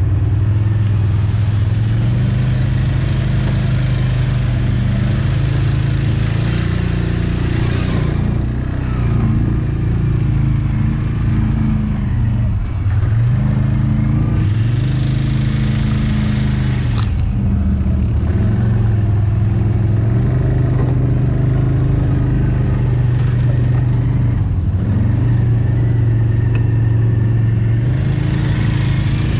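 Quad (ATV) engine running steadily under way. Its pitch dips and picks up again twice, around the middle.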